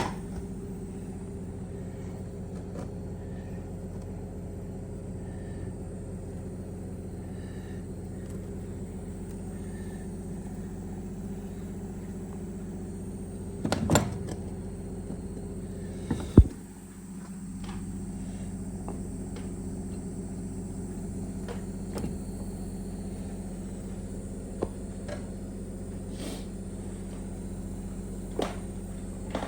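A steady machine hum with a few sharp clicks and knocks of hard parts being handled; the loudest knock comes about 16 seconds in.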